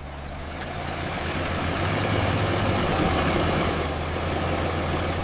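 A steady engine rumble with a low hum, growing louder over the first two seconds and easing off toward the end.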